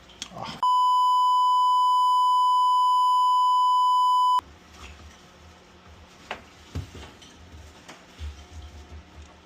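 A single steady electronic beep tone, held for nearly four seconds and switched on and off abruptly, of the kind edited in as a censor bleep. After it, quiet room sound with a few faint knocks.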